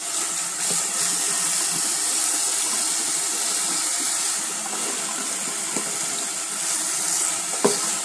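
Tap water running in a steady stream onto a Dyson vacuum's washable filter in a sink, splashing as a hand rubs the filter under it to wash the dust out. Two light knocks in the second half.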